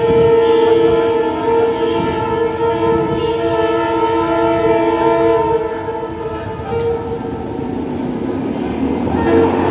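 A train horn sounds one long, steady blast that fades out a little past halfway. Near the end a rushing rail noise builds as the train approaches.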